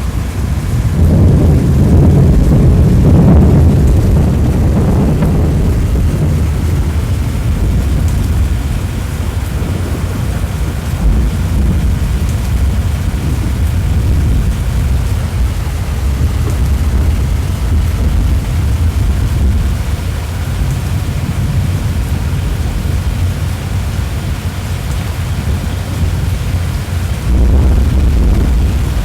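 Heavy rain falling steadily, with thunder rumbling for several seconds near the start and again briefly near the end.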